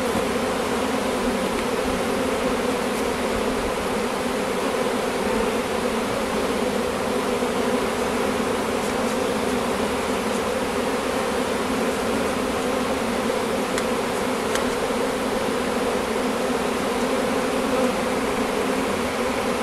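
A swarm of honeybees buzzing around a hive as they settle in, one steady, unbroken hum.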